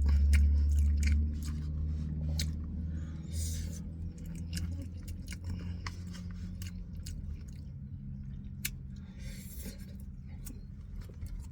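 Close-miked chewing and eating from a steak burrito bowl, with scattered small clicks and mouth noises, over a steady low hum.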